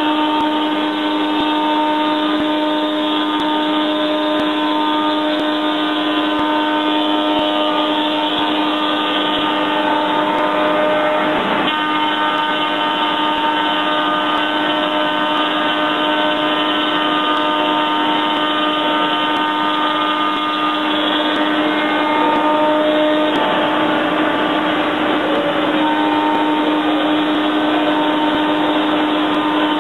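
Two spindle shapers with power stock feeders running steadily as slotted panels feed through, the cutters shaping their edges: a loud, constant machine hum and whine.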